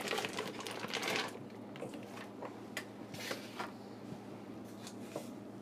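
Faint crinkling and rustling of a foil cream cheese wrapper as softened cream cheese is squeezed out into a stainless steel mixing bowl, with scattered light clicks.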